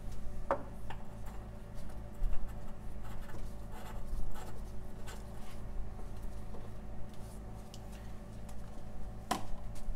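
Light rustling and scraping as hands work a plastic oil funnel and a paper shop towel at an engine's oil filler. A few sharp plastic clicks come through, one about half a second in and a louder one near the end, over a steady low hum.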